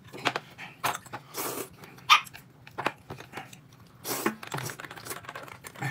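Close-up eating sounds: a person biting and chewing food, with irregular crunches and smacks.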